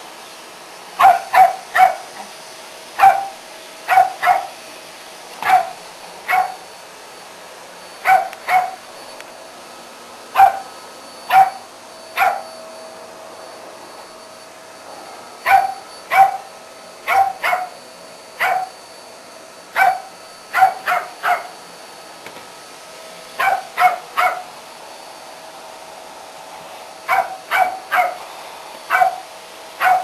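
West Highland White Terrier barking at a vacuum cleaner: about thirty sharp, high-pitched yaps in quick twos and threes with short pauses between. The vacuum cleaner runs steadily underneath.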